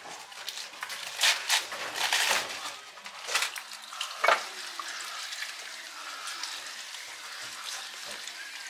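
Iceberg lettuce leaves being torn and handled in a bowl, with several crisp crunches. From about halfway, water from a kitchen faucet sprayer runs onto the leaves in a steady hiss.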